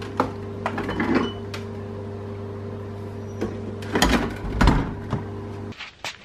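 Steady electrical hum of a refrigerator standing open, with knocks and glassy clinks as bottles in its door shelves are handled and taken out, the loudest pair about four seconds in. The hum cuts off shortly before the end.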